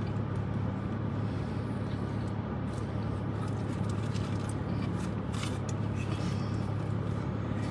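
Steady low hum of a car's engine running, with a few faint clicks and rustles about five seconds in.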